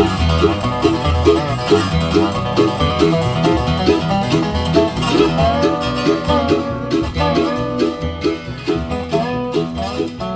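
Background music with a steady, quick beat, growing quieter near the end.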